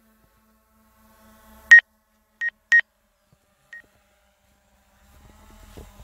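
Four short electronic alert beeps at one high pitch from the DJI Mavic Air 2's flight controls, the first the loudest and the last faint. They are a warning of obstacles as the drone flies close to branches.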